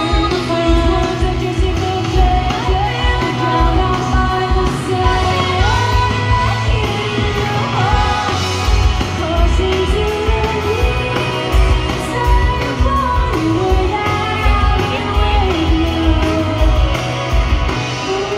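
Indie pop band playing live, with electric guitars, drums and keyboards under a woman singing lead, heard from the crowd in a large hall.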